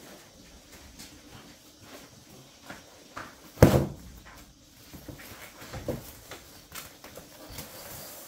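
A series of knocks and clatters. The loudest is a heavy thump about three and a half seconds in, with another clear knock near six seconds.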